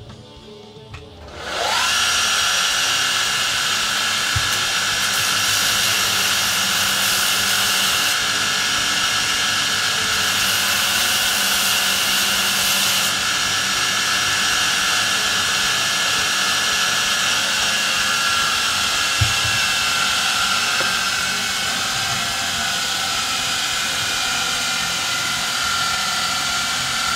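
An electric power tool motor spins up just over a second in, then runs steadily with a high whine and hiss. Its pitch sags a little over the last few seconds.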